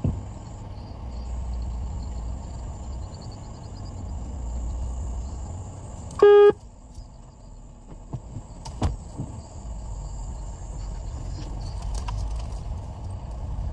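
Car engine running at low revs, heard from inside the cabin during slow manoeuvring. About six seconds in there is one short, loud beep, and a click follows near nine seconds.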